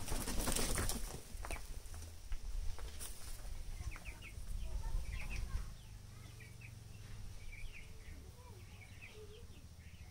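Layer chickens fighting: a burst of loud wing flapping and scuffling in the first second or so, then a run of short, high chirping calls.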